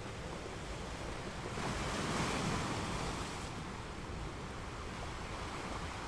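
Steady rushing wash of sea water noise, like waves, swelling briefly about two seconds in.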